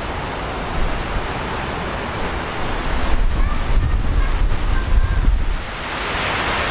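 Wind buffeting the microphone over a steady rushing outdoor background, the gusts heavier from about halfway through, with a few faint short high chirps.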